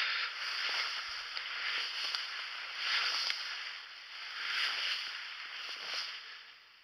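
Dense bracken ferns and brush swishing against legs and clothing while walking through them, in repeated swells with each stride. It dies away near the end.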